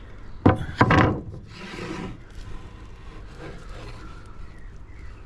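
Blackwood acacia slabs being handled: two loud wooden knocks about half a second apart, followed by a short scrape of wood sliding on wood.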